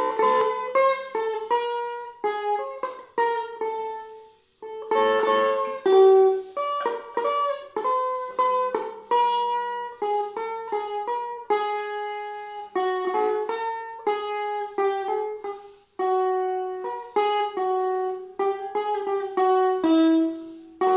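Stratocaster-style electric guitar played solo: a slow melody of mostly single picked notes, each ringing on, with a few chords mixed in. The playing breaks off briefly twice.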